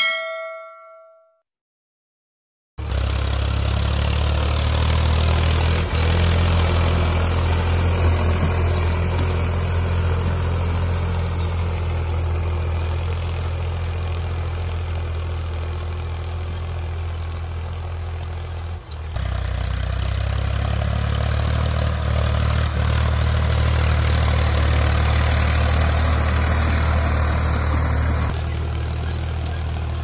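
A notification bell chime rings once and fades. After a short pause a diesel tractor engine runs steadily, pulling a disc plough through the soil, with a brief break about two-thirds of the way through.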